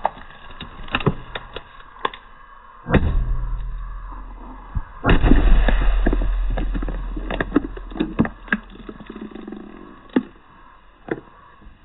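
Car tyre rolling slowly onto a full aluminium can of beer: grit crackles under the tyre, a loud crunch comes about three seconds in, and about five seconds in the can bursts with a bang and beer sprays out in a hiss that fades over a few seconds.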